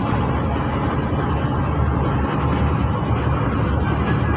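A fishing boat's engine running steadily, a continuous low rumble that carries on without a break.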